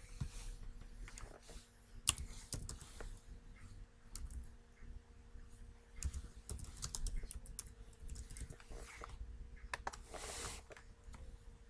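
Typing on a computer keyboard: key clicks in short spells, with a brief hiss near the end.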